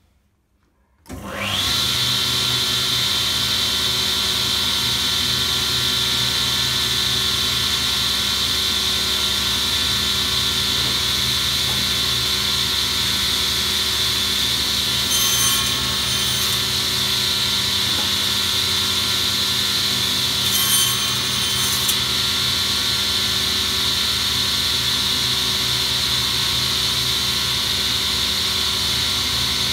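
Sliding-table panel saw starting up about a second in and then running steadily at speed with a high whine. Twice around the middle the blade briefly cuts through a board, cutting the shoulders of a tenon.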